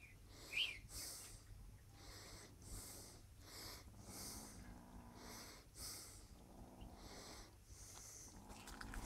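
Faint, regular breathing or snorting puffs, roughly three every two seconds.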